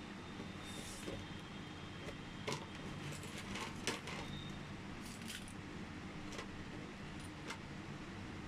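Scattered light metallic clicks and taps from small car-lock parts and tools being handled while a Honda City lock is dismantled.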